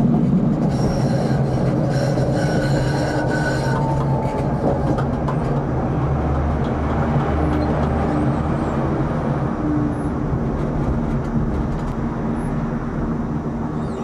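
Tram running on its rails, heard from the driver's cab. From about one to four seconds in, a high wheel squeal rises over the rolling noise as the tram takes a curve. After that the running noise slowly fades as the tram slows into a stop.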